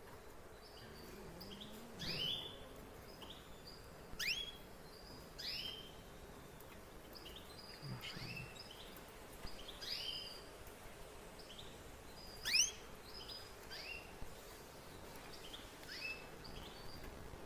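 Canary chirping: a string of short, sharply rising call notes mixed with brief high peeps, one every second or two, the loudest about twelve seconds in.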